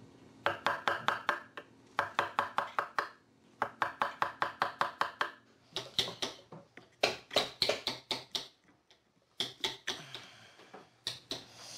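A hammer tapping a wooden-handled carving chisel as it cuts into wood, in quick runs of about seven light strikes a second separated by short pauses, the strikes growing more irregular in the second half.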